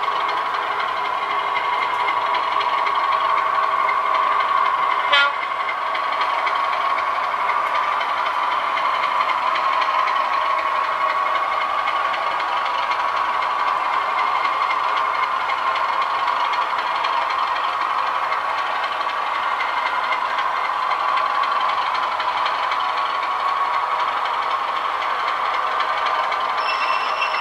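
Recorded diesel engine sound from a DCC sound decoder in an OO gauge model locomotive, a steady drone through its small onboard speaker, with one short sharp click about five seconds in.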